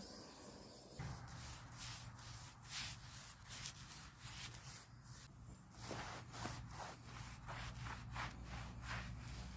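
Repeated rubbing strokes on the wood of a log being dressed into a beam, about two a second, starting abruptly about a second in, over a steady low hum.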